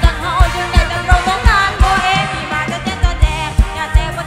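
Live band playing an upbeat Thai luk thung song, with a fast steady kick-drum beat under a female lead vocal.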